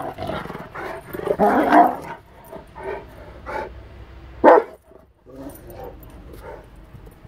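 Rottweiler barking at play: a series of short barks and yelps, the loudest a single sharp bark about four and a half seconds in.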